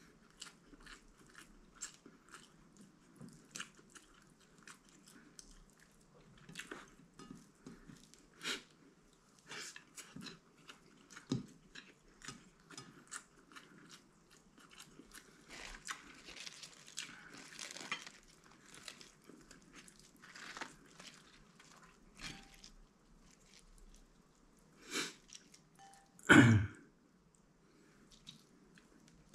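A person chewing and biting crunchy food close to the microphone, with many short crackly crunches and small mouth and finger clicks scattered irregularly, and one much louder brief sound about 26 seconds in.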